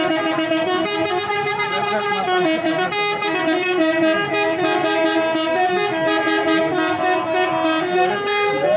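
Tour-bus telolet horns, multi-tone musical air horns, sounding loudly and without a break. Several tones are held together and step between notes.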